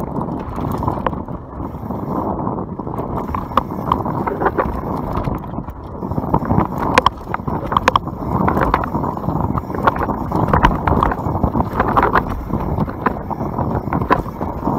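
YT Capra enduro mountain bike descending a dirt forest trail at speed: wind rushing over the microphone, tyres rumbling on the dirt, and sharp rattling clicks from the bike over bumps, busier in the second half.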